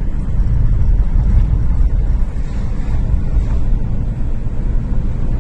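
Steady low rumble of a car driving along a road, heard from inside the car: engine and road noise.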